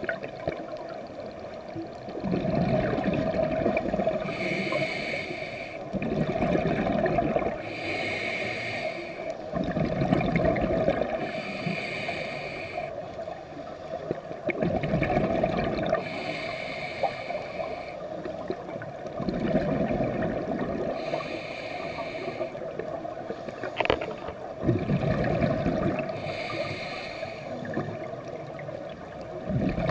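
Scuba diver breathing underwater through a regulator: a hissing inhale through the demand valve alternates with a bubbling exhale, about one breath every four to five seconds. One sharp click late on.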